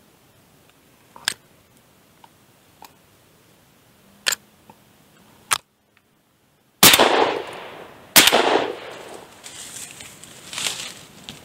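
Two shotgun shots about a second and a half apart, each very loud and dying away over a second or more. A few faint sharp clicks come before them.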